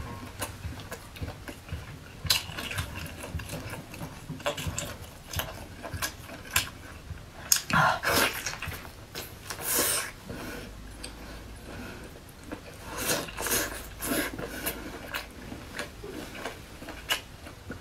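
Close-up eating sounds of braised squid: wet chewing, lip smacks and sticky mouth clicks as the rubbery flesh is bitten and torn. Irregular small clicks throughout, with a few louder, wetter bursts.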